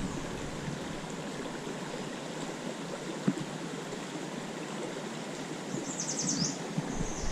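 A small river flowing steadily, an even rushing of water. A brief high rattling comes in near the end.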